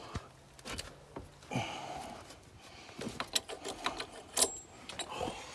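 Irregular light metallic clicks and clanks of hand tools being worked, with a sharper clank about four seconds in.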